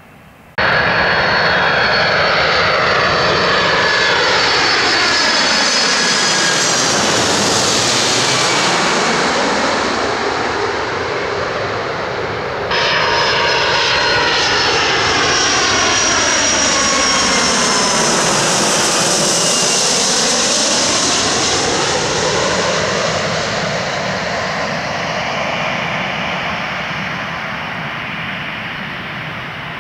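Jet airliner passing low overhead on approach to land: a steady engine roar with a high whine that falls in pitch and a swooshing, phasing sweep as it goes over. The sound cuts in suddenly about half a second in and jumps abruptly to another pass about 13 seconds in, fading slowly near the end.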